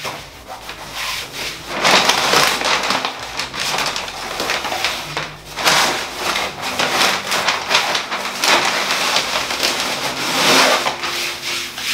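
Self-adhesive vinyl contact paper being worked by hand: the paper backing is peeled away and crinkles, and the vinyl is rubbed and smoothed. It makes crackling and rustling in uneven bursts.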